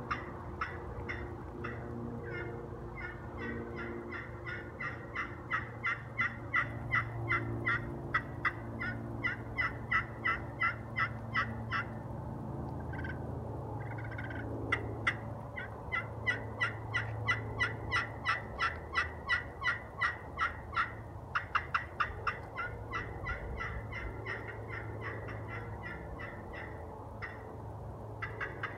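Crystal-surface friction pot turkey call worked with a striker, running long strings of quick yelps at about four to five notes a second, with a few short breaks between the runs.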